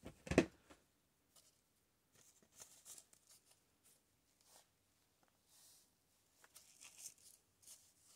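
A single knock about half a second in, then soft, intermittent rustling and crinkling of tulle and ruffled fabric being pressed and arranged by hand.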